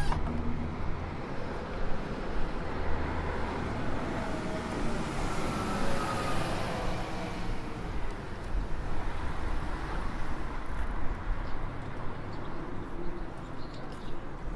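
City street ambience: a steady hum of road traffic, swelling around the middle as a vehicle passes.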